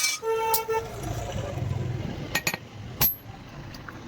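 A few sharp metal-on-steel strikes with a high ring, like hammer blows on steel, about two and a half and three seconds in. Near the start there is a short steady honk in two parts, like a vehicle horn.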